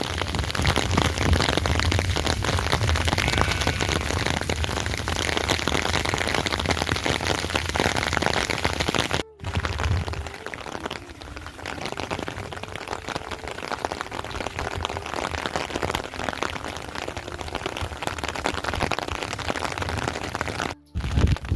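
Steady rain falling, an even hiss. It cuts off abruptly about nine seconds in and resumes quieter, then cuts again near the end.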